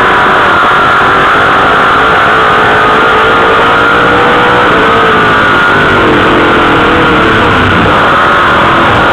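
Dirt late model sportsman race car's engine heard from the in-car camera, very loud, its pitch climbing, dropping about five seconds in, then climbing again as the throttle comes off and back on.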